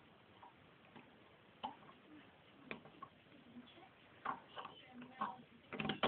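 Steel lock pick clicking and scraping against the wafers inside a Ford Granada car door lock barrel. The light ticks come singly at first and more closely bunched in the last two seconds.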